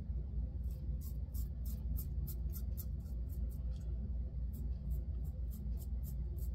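Timeless 0.68 titanium safety razor with a fresh Perma-Sharp blade scraping through lathered stubble under the nose. Quick short strokes come about three a second, with a brief pause near the middle.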